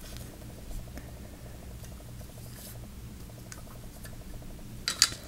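Faint handling noise of a metal lightsaber hilt being turned in the hands: a few soft clicks and rubs over a steady low hum, with two sharper clicks near the end.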